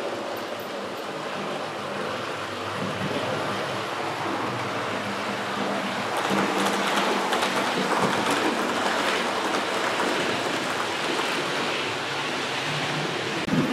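Model train running on the layout track: a steady rushing rumble with faint clicking, swelling a little about halfway through.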